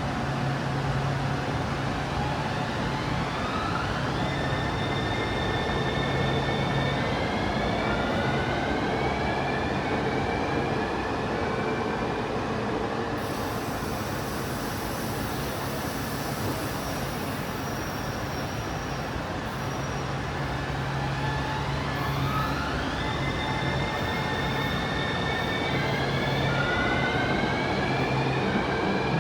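Sanying Line metro train running on elevated track: a steady rumble of wheels and running gear, with an electric motor whine that climbs in steps twice, a few seconds in and again about 22 seconds in.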